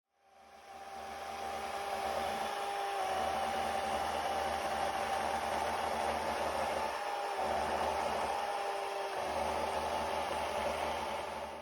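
Electric motor of an electrified chainsaw driver running steadily with a whine and a hiss; it runs up at the start and stops near the end, its low hum briefly dropping out twice along the way.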